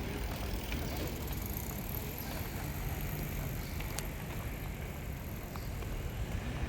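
Steady low rumble of road traffic, with a few faint ticks and a thin, faint high whine over it.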